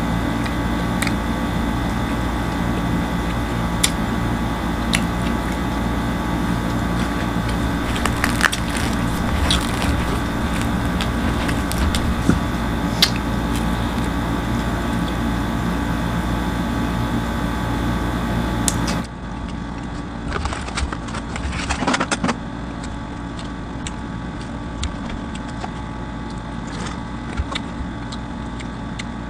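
Close-up eating sounds: crunching bites and chewing of pizza, heard as scattered crisp clicks in short clusters, over a steady background hum. About two-thirds of the way through, the sound turns quieter and duller.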